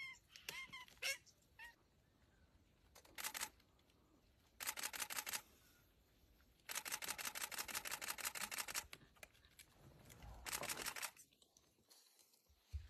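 Rapid bursts of camera shutter clicks from a camera on continuous shooting, in four runs, the longest about two seconds, at roughly ten clicks a second. In the first two seconds come a few short, high, rising-and-falling squeals from the rabbit held in the leopard's jaws.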